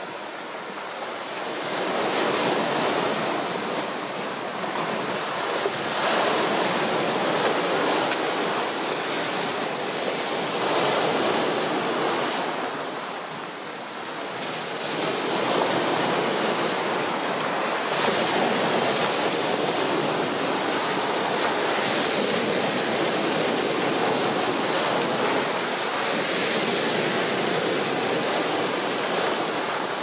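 Sea waves breaking on a rocky shore and washing over boulders and a pebble beach, a continuous rushing surf that swells with each breaker and eases between them, dipping briefly about halfway through before building again.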